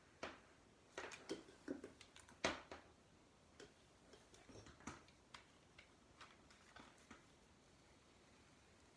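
Faint, irregular clicks and taps from handling a flat iron while curling hair, the loudest about two and a half seconds in.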